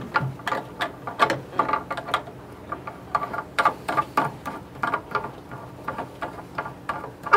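Irregular clicking and light knocking of hard aquarium sump parts being handled, several short clicks a second, each with a brief ring.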